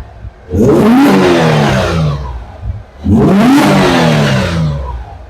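Toyota Camry race car's V6 engine free-revved twice, each rev climbing sharply and then falling back to idle, through its freshly repaired exhaust. The owners call it an amazing sound.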